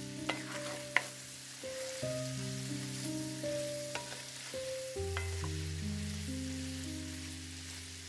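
Sliced potatoes and onions sizzling in a cast-iron skillet as a wooden spoon stirs them, knocking against the pan several times, the sharpest knock about a second in. Soft background music with held chords plays under it.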